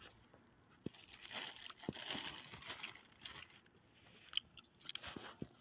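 Small dog chewing bits of chicken, with faint crunching and sharp clicks as it noses about on gravel. The crackling is busiest in the middle, and a few separate clicks follow.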